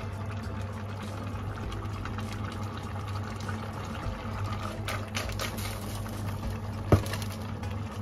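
Freshly drained potatoes steaming dry in a hot stainless steel pot on an induction hob: faint sizzling of leftover water over a steady low hum. A single sharp click about seven seconds in.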